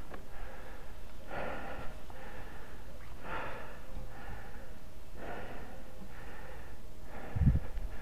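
A person breathing heavily close to the action camera's microphone, one breath about every two seconds, over a low steady rumble. A low thump comes near the end.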